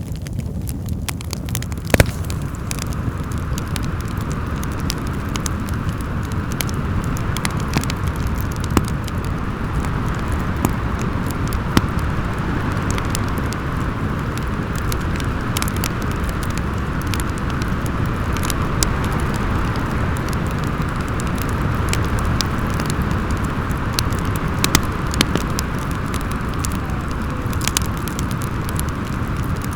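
Wood fire crackling with scattered sharp pops, one louder pop about two seconds in, over a steady low rush of howling wind.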